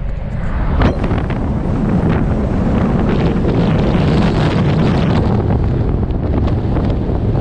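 Wind buffeting the microphone of a camera on a moving car, over a steady rumble of road and tyre noise.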